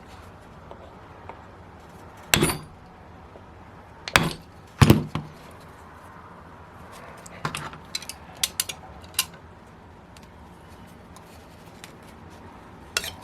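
Tools knocking and clicking against a small YS-45FS model glow engine as its heat-stuck rear cover is worked loose. Three sharp knocks in the first five seconds, then a run of lighter clicks and one more knock near the end.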